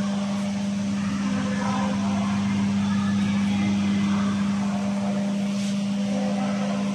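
Steady low machine hum with fan noise from a powered-up handheld fiber laser machine, its S&A RMFL-2000 water chiller running.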